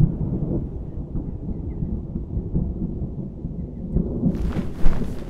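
Thunderstorm sound effect: a low rolling rumble of thunder that slowly fades. About four seconds in, a hiss across the highs comes in with a sharp crack.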